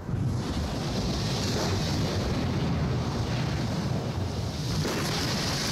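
Steady rush of wind and sea water with a deep rumble underneath, starting abruptly: a warship pushing through the waves.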